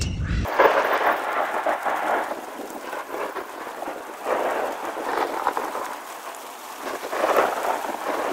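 Thunderstorm: a deep rumble of thunder stops abruptly about half a second in. Then a steady hiss of rain swells and eases three times.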